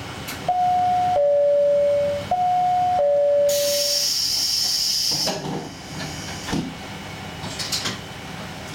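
Two-note train chime, high then low, played twice. A burst of air hiss and a few clunks follow as the railcar's pneumatic doors close.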